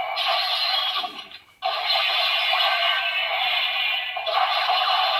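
Electronic music, voice and effects played through the small speaker of the Kamen Rider Saber DX transformation toy, with the Saiyuu Journey Wonder Ride Book in a combination; a short break about a second in.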